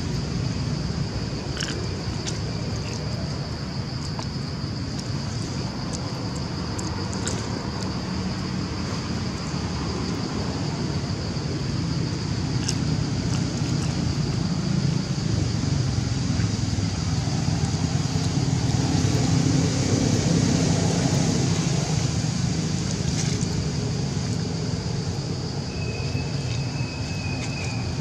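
Wind rumbling on the microphone outdoors, swelling a little in the middle. A steady high buzz runs under it, with a few faint clicks and a short high squeak near the end.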